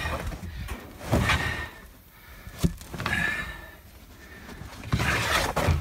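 Old, rotting car trunk carpet being pulled up and torn loose in several rasping tugs, with a sharp knock about two and a half seconds in.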